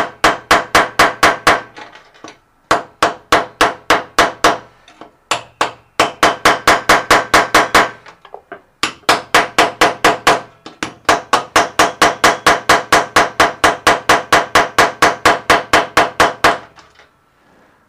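Rapid metal-on-metal hammer blows, about four a second in several runs with short pauses, each strike ringing, as a spin bike's flywheel bearing is beaten to knock it out; it does not budge.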